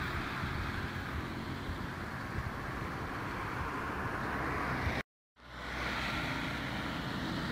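Outdoor street ambience: wind buffeting the phone's microphone over a steady hiss of distant traffic. The sound cuts out for a split second about five seconds in, then resumes.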